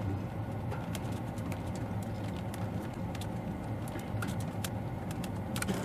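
Small hail (graupel) pellets ticking irregularly on a car's windscreen and bonnet, heard from inside the car over a steady low hum.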